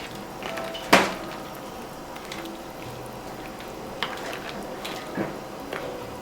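Kitchen handling sounds over a pot of boiling water: one sharp knock about a second in, then a few lighter clicks and taps, over a steady bubbling hiss.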